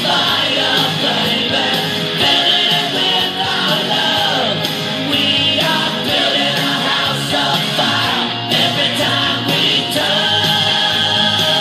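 Rock song with electric guitar and singing, played loud through a homemade .50-caliber ammo-can Bluetooth boombox fitted with two Polk speakers.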